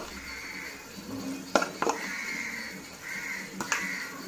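A spoon clinking sharply a few times against the bowl and the steel kadai as spiced curd paste is scraped into hot oil, which sizzles.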